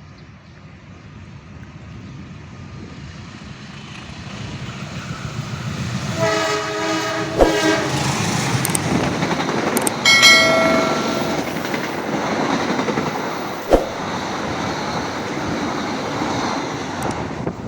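An express passenger train approaching and running past at speed, its rumble and wheel clatter growing louder over the first six seconds. The locomotive sounds its horn, a spell about six seconds in and another about ten seconds in, with a couple of sharp knocks from the wheels on the track.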